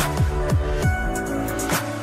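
Electronic background music with a steady beat of deep, pitch-dropping kick drums and sharp percussive hits over a sustained synth backing.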